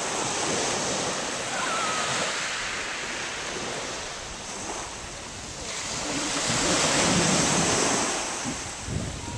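Small waves breaking and washing up a shingle beach, the surf swelling, easing off midway, then swelling again, with wind buffeting the microphone.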